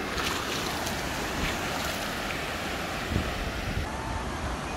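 Small waves washing over shallow water at the shoreline, with wind noise on the microphone.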